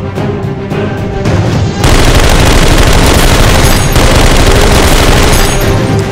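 Background music, then about two seconds in a loud burst of rapid machine-gun fire sound effects that lasts about four seconds and breaks off near the end, laid over a Nerf blaster being fired.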